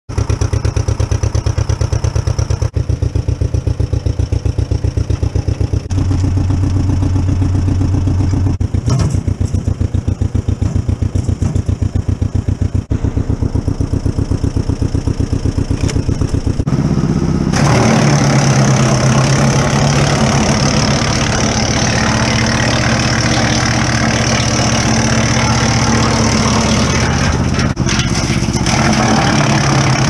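The two-cylinder engine of a 1953 John Deere 40 tractor running with an even, pulsing beat. About 17 seconds in, a louder, steadier running with a wide rushing hiss takes over as the tractor drives the PTO wood chipper.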